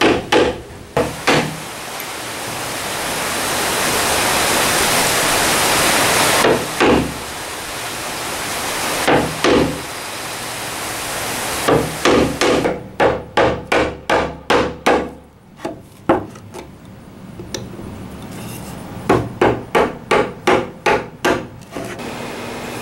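Steel chisel struck with a hammer, chopping into maple to clear out a mortise between drilled holes, with single blows and quick runs of about four strikes a second. A steady hiss of rain runs underneath.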